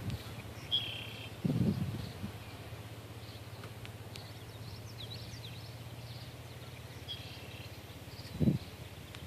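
Birds chirping now and then over a steady low hum, with two brief low thumps, one about a second and a half in and a louder one near the end.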